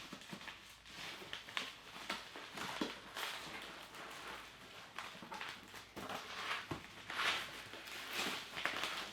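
Cardboard and plastic packaging rustling, with scattered light knocks and clicks, as boxed Funko Pop vinyl figures are handled and lifted out of a shipping box. The rustling comes in short bursts, loudest about three seconds in and again near the end.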